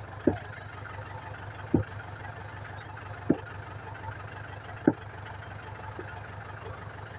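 A tractor engine idling steadily. A sharp knock cuts through four times, about every second and a half, louder than the engine.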